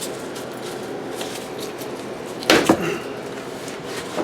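The rubber windshield seal of a 1963 Chevy C10 cab being worked loose and pulled from the glass and frame. There are light scrapes, then one loud, short rubbing squeak falling in pitch about two and a half seconds in.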